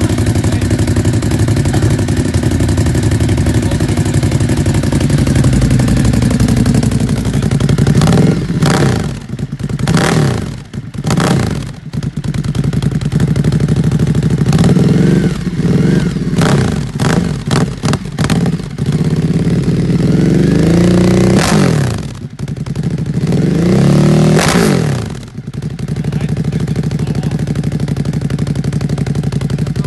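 Ducati Hypermotard 950 SP's 937 cc Testastretta L-twin breathing through a full Austin Racing exhaust, at a steady fast idle on a cold start. About eight seconds in the throttle is blipped: a few quick stabs, a flurry of short blips, then two longer revs that rise and fall, before the engine settles back to idle near the end.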